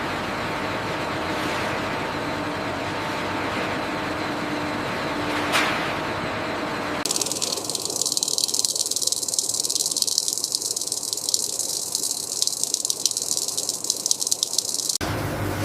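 Steady machine noise with a faint hum and a single click. About seven seconds in it cuts abruptly to a high, crackling hiss with rapid rattling ticks, which stops suddenly about a second before the end.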